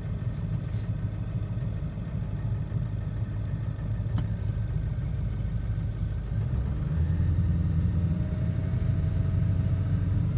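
1996 Ford F-250's 7.3-litre Power Stroke turbo-diesel V8 idling steadily just after a cold start, heard from inside the cab. The idle grows a little louder about two-thirds of the way through.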